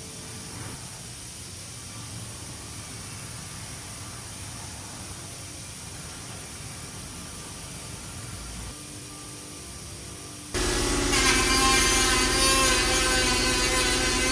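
A low steady hum, then about ten and a half seconds in a power tool starts abruptly and runs loudly with a whining buzz over hiss, working on the van's sheet metal.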